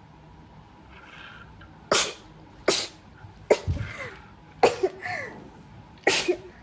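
A young woman sneezing five times in a row, about a second apart, after a faint breath in. Some sneezes end in a short voiced sound.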